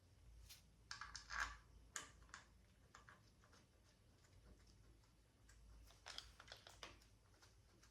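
Faint light clicks and taps of small metal parts and tools being handled, in a cluster about a second in and another around six seconds in.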